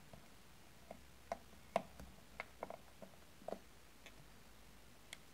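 Light, irregular clicks and taps of a miniature wooden rolling pin, small knife and fingernails handled on a metal worktop and pastry mat, about nine over five seconds, the loudest just under two seconds in.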